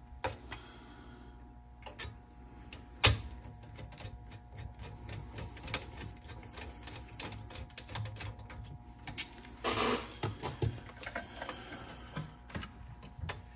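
Scattered small clicks and taps of screwdriver work on a cassette deck's head-shield parts as they are screwed down, with a sharper click about three seconds in and a brief scraping rustle about ten seconds in.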